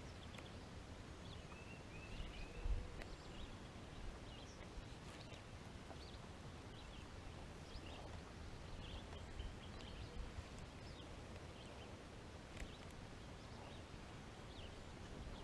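Birds chirping, scattered short calls with a warbling phrase about two seconds in, over a low rumble of wind on the microphone. There is a single thump about three seconds in.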